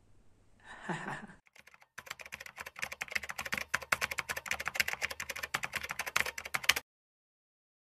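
Rapid computer-keyboard typing clicks, a sound effect for on-screen text being typed out, starting about two seconds in and cutting off suddenly about five seconds later. Just before, a small child's voice briefly says something.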